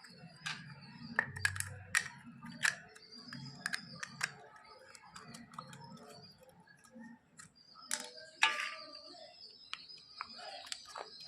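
Light, irregular clicks and taps of small parts being handled during an LED spotlight repair, with a faint low murmur in the first few seconds.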